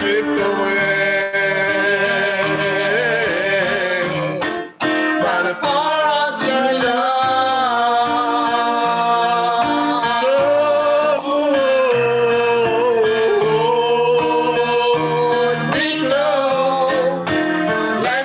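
Worship song music: a singing voice over instrumental accompaniment, with a brief drop in sound about five seconds in.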